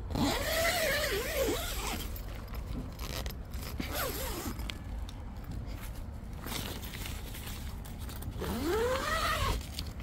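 Tent zipper pulled in three strokes: one at the start, a short one about four seconds in, and one near the end. Each rises and then falls in pitch as the slider speeds up and slows down, over a steady low rumble.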